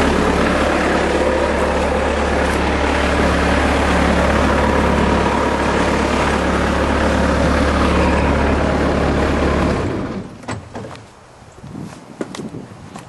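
Bobcat 753 skid steer's diesel engine idling steadily, then shut off about ten seconds in, leaving a few light footsteps and clicks.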